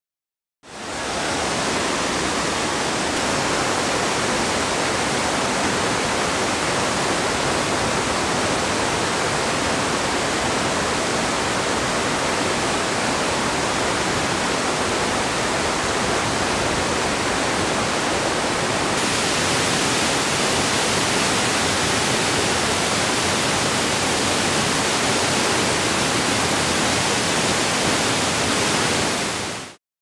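Joren Falls, a waterfall plunging into its plunge pool, making a steady, dense rush of falling water. The rush fades in just under a second in and fades out at the very end, and turns slightly brighter and hissier about two-thirds of the way through.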